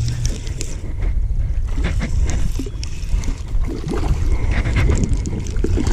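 Wind rumbling on the microphone, with scattered small clicks and rattles from a fishing reel being cranked.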